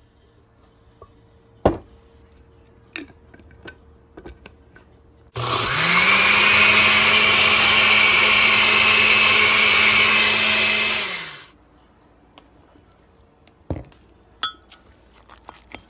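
Oster countertop blender motor spins up sharply about five seconds in and runs steadily for about six seconds, blending a liquid drink, then winds down. A few knocks and clicks come before it, the sharpest about two seconds in, and a few more after it.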